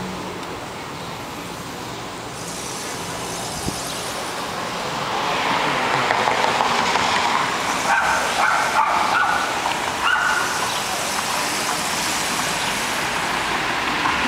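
Road traffic on a city street: cars passing, the noise swelling about five seconds in and staying louder, with a few brief high-pitched squeaks around the middle.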